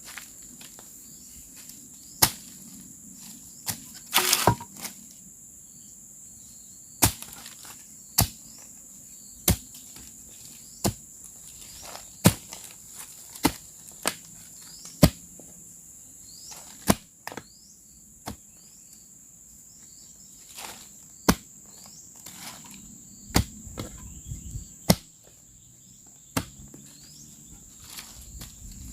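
Sharp knocks of a tool striking bamboo, roughly one every second or so at an uneven pace, while insects keep up a steady high drone.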